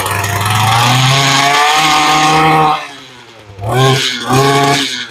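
Mantis tiller's Echo two-stroke engine held at high revs for nearly three seconds, then dropping back sharply, followed by two short throttle blips near the end. It is being run up while the high-speed carburetor mixture screw is adjusted after a carb rebuild.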